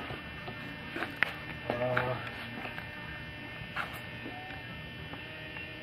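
Steady electrical hum. A voice murmurs briefly about two seconds in, and a couple of light clicks come near one and four seconds.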